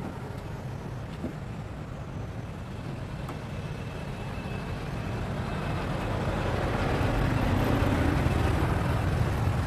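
Low, steady motor-vehicle engine rumble, growing louder over the second half.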